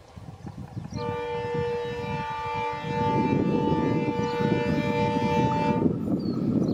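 WDP4D diesel locomotive sounding its horn in one long chord-like blast of about five seconds, starting about a second in and cutting off sharply. The approaching train's rumble of engine and wheels on rails grows louder underneath.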